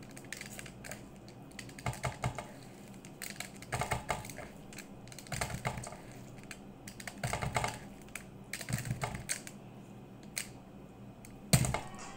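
Hands scooping rice stuffing in a stainless steel bowl and packing it into hollowed-out vegetables: short clusters of small crackling clicks every second or two, with one sharp knock near the end.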